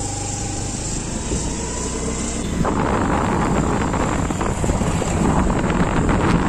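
A vehicle's engine running and its road noise while it drives, with wind buffeting the microphone. About two and a half seconds in, the steady engine hum gives way to rougher, gustier wind noise.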